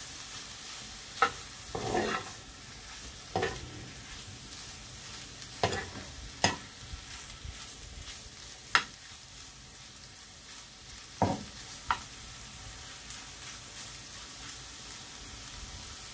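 Shrimp frying in a pan without oil, sizzling in their own liquid, while a metal spoon stirs them. The spoon knocks and scrapes against the pan about eight times in the first twelve seconds, then only the steady sizzle is left.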